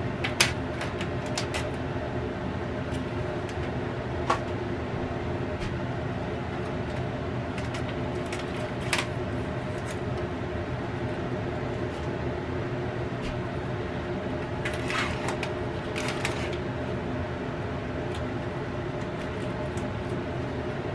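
Cosori air fryer oven running with a steady fan hum, with a few light crinkles and ticks now and then as plastic film is peeled off a food tray.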